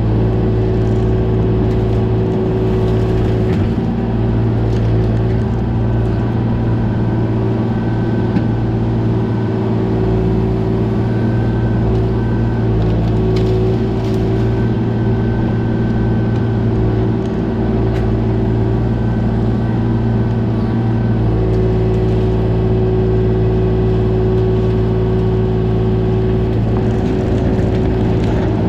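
Kubota mini excavator's diesel engine running steadily, with a faint high whine that comes and goes through the middle stretch.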